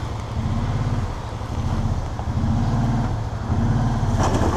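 Kawasaki Teryx 800 side-by-side's V-twin engine revving in repeated surges as it strains to climb a rock it is hung up on, with a brief scraping burst near the end.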